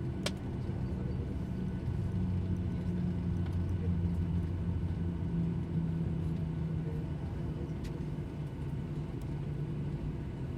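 Airliner cabin noise: a steady low rumble of the engines and airflow heard from inside the cabin, with a single sharp click about a quarter second in.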